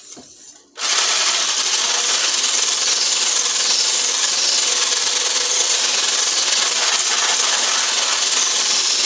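Stick blender with a whisk attachment switched on just under a second in and then running steadily, whisking foamy egg whites in a glass bowl.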